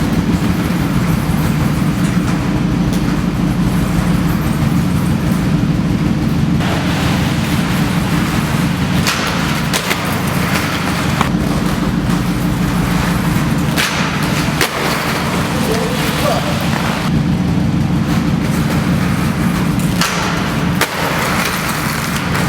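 A steady low engine drone from an idling car, with inline skate wheels rolling on pavement and a few sharp knocks of skates striking a metal rail.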